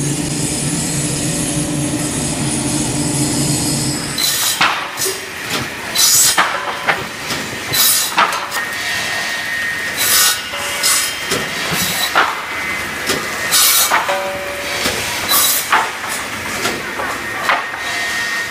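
Wood pallet-making machine at work. For about four seconds its electric motor hums steadily. Then the sound changes to irregular loud wooden clattering and knocks, with short hissing bursts, about one every second or two, as boards are cut and dropped.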